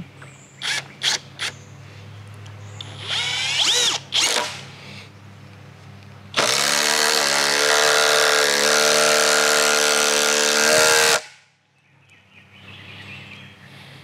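Hercules cordless drill driving a long GRK structural screw into a hard oak slab. A few short trigger blips come first, then a brief rising spin-up about three seconds in. From about six seconds the motor runs loud and steady under load for roughly five seconds and cuts off suddenly.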